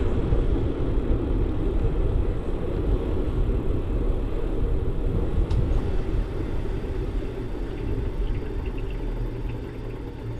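Wind buffeting a moving bicycle camera's microphone along with bicycle tyres rolling on asphalt, a steady low rumble that eases a little near the end.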